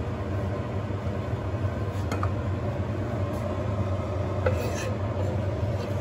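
A chef's knife scraping and tapping minced garlic across a wooden cutting board and into a nonstick pan, a few short sharp scrapes over a steady low hum. The garlic makes little sizzle going in, because the pan is not very hot yet.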